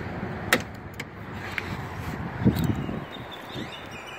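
Car noise: a steady low rumble that fades after about three seconds. A sharp click comes about half a second in and a low thump about two and a half seconds in.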